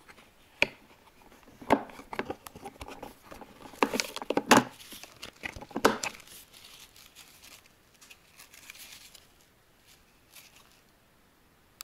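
Handling noise from a Helios FishBox winter fishing box: sharp plastic clicks and clacks from the box and its clear compartment lids, mixed with the rustle of a nylon webbing shoulder strap being pulled out and moved against the plastic. The loudest clacks come about four to six seconds in, followed by quieter rustling.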